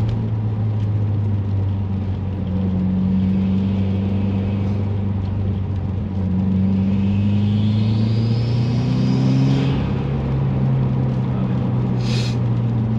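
2018 Subaru WRX's turbocharged flat-four engine running while driving, its note climbing under acceleration from about six seconds in. A rising turbo whistle joins it and cuts off suddenly near ten seconds, and a short hiss follows about twelve seconds in.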